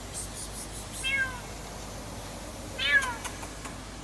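A cat trapped in a car's engine compartment meowing twice, about two seconds apart, each call falling in pitch; the second is louder.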